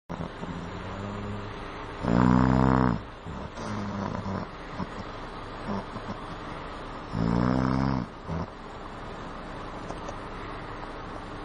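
A man snoring heavily: two loud, drawn-out snores about five seconds apart, with quieter rumbling breaths between them.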